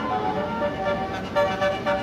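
Basuri telolet bus horn playing a melody: held notes that step up and down in pitch, several sounding together, with a brief louder blast about one and a half seconds in.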